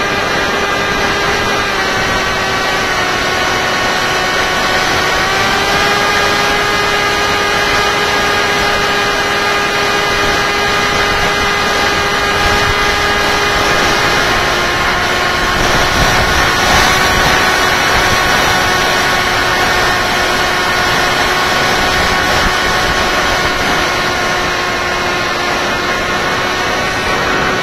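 Tek Sumo flying wing's electric motor and propeller whining steadily in flight, heard from the onboard camera, over a constant rush of wind across the airframe. The pitch climbs slightly twice in the first few seconds and eases a little lower about halfway through, with a short swell of wind noise soon after.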